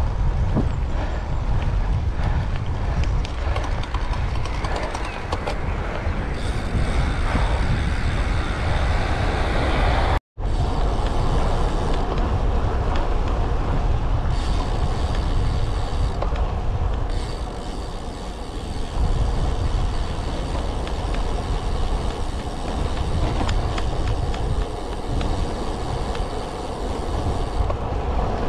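Wind buffeting the camera's microphone and tyre noise from a road bike riding along a paved road, a continuous low rumbling rush. The sound cuts out for a moment about ten seconds in.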